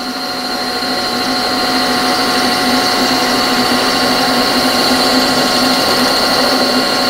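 Milling machine spindle turning a face mill over a steel workpiece as the table traverses back, the cutter lightly skimming the part on the return pass: a steady machine whine with noise that grows a little louder over the first couple of seconds. The cut on the way back is taken as a sign that the part may have shifted slightly in the vise.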